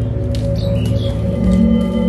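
Dark horror-film background score: a low drone of held tones with no beat, joined by a few short, high bird-like chirps.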